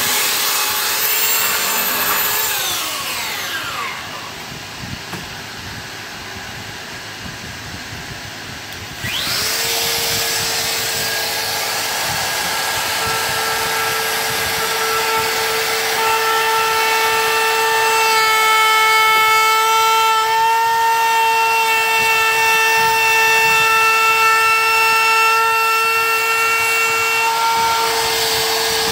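Belt sander running on plywood, then winding down with a falling pitch when it is switched off. About nine seconds in, a DeWalt compact router starts with a quick rising whine and then runs at a steady high pitch, trimming the edge of a plywood boat frame.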